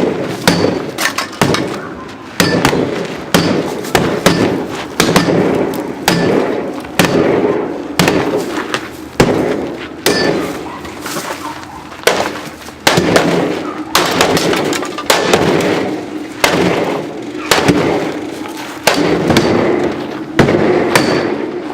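Repeated heavy blows from a hammer or bat on a refrigerator, irregular at about one to two a second, each a sharp bang with a short ringing decay after it.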